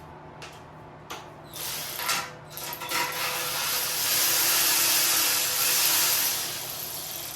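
Handheld power tool, run in a few short trigger pulls and then steadily for about four seconds, backing out a bolt from the minibike.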